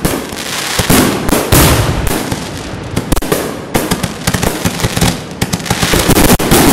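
Fireworks firing in quick succession close by: launch thumps and overhead bursts with crackle and hiss, one on top of another with hardly a gap.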